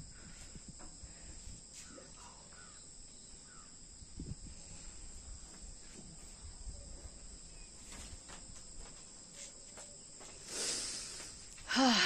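Steady high-pitched drone of insects, with a short rush of noise a little before the end.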